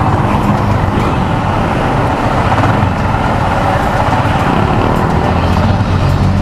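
Yamaha Sniper 150 motorcycle's single-cylinder engine running steadily under way, mixed with road and wind noise, as picked up by a helmet-mounted action camera's microphone.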